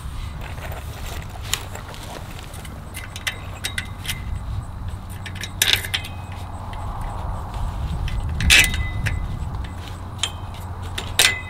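Small metal clicks and clinks of a bolt and its hardware being handled and fitted by hand through an aluminum wire channel and wooden baseboard, with a few louder clinks about six, eight and a half and eleven seconds in. A steady low rumble lies underneath.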